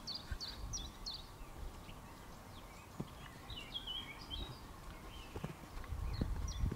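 A young Quarter Horse mare walking on arena sand, with a few soft hoof thuds over a low rumble. A bird sings short repeated chirping phrases, most clearly near the end.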